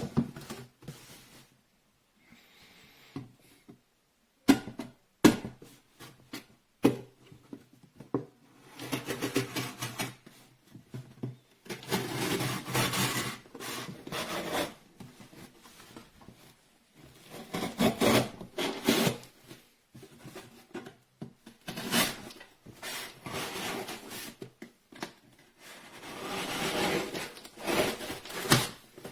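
Hands handling a 15-in-1 multi-purpose pocket knife: a few sharp clicks, then several stretches of rubbing and scraping.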